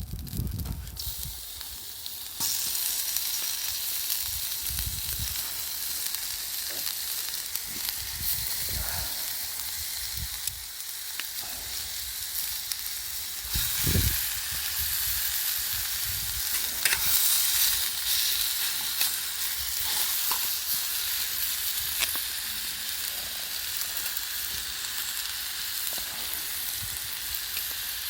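Food sizzling as it fries over a campfire, with a few low knocks. The sizzling jumps louder about two seconds in and then holds steady.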